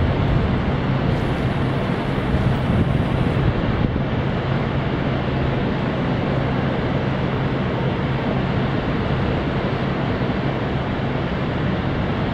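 Steady city street ambience: an even rush of noise with a low hum, mixed with wind on the microphone.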